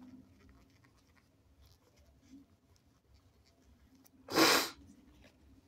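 A single short, sharp burst of air through a congested nose (a sneeze or a hard nose blow), lasting about half a second, a little over four seconds in. Before it there is faint rustling with small clicks.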